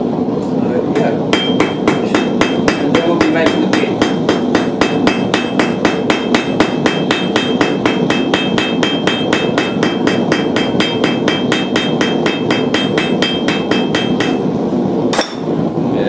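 Blacksmith's hand hammer striking a red-hot 5 mm steel bar on the anvil face in fast, even blows, about four a second, with a ring carrying through, as the bar is drawn out. The blows start about a second in and stop a little before the end, followed by a single strike; a steady low rush runs underneath.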